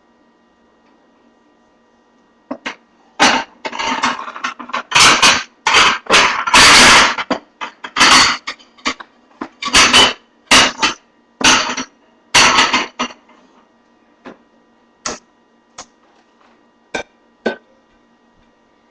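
Kitchen utensils and cookware clattering: a dense run of sharp knocks and short scrapes starting a few seconds in and lasting about ten seconds, then a few scattered clicks.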